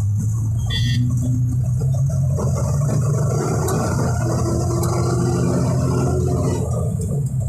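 Engine of a truck running steadily as it drives along a road, heard from inside the cab as a loud, even low hum.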